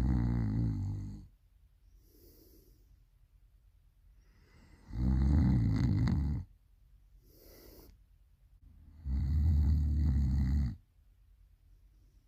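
Really loud snoring: three long rasping snores about four seconds apart, each followed by a softer, airy exhale.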